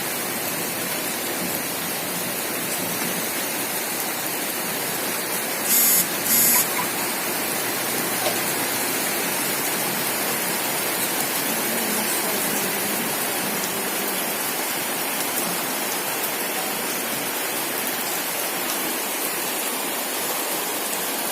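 Heavy rain pouring steadily, a dense even hiss of large raindrops. Two brief louder bursts come about six seconds in.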